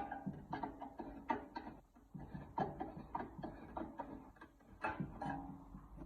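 Irregular clicks and light knocks of an LED railway level-crossing light's housing and parts being handled and taken apart.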